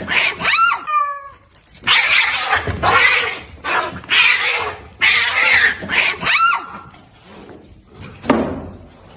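A cat yowling and hissing in a string of short, repeated cries, some gliding in pitch. It quietens after about seven seconds.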